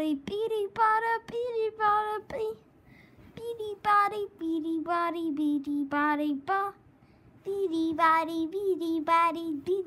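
A young boy singing in long held notes, in three phrases with short breaks about three seconds and seven seconds in.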